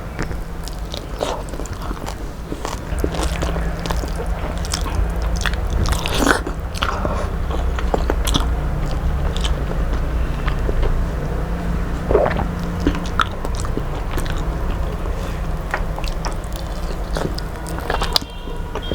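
A person chewing and biting food close to the microphone, with many irregular small crunches and wet mouth sounds over a steady low hum.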